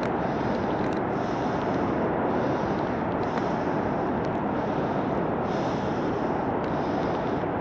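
Steady rushing noise of the South Platte River's flowing water, with a hissier edge that swells and fades about once a second.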